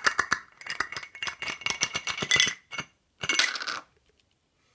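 Small aluminum tins from a VSSL survival canister clattering and rattling as they slide out of the aluminum tube and knock together on a wooden table: a dense run of metallic clicks for about three seconds, a short second burst of clatter, then it stops.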